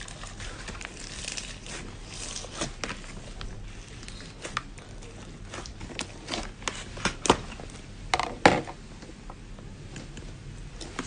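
Hands squishing and poking slime, making irregular sticky clicks and small crackling pops, with a louder cluster of pops about eight seconds in.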